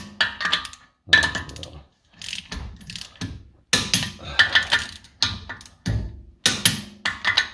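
Socket ratchet wrench clicking in quick repeated strokes as nuts are run down on the car's front hub.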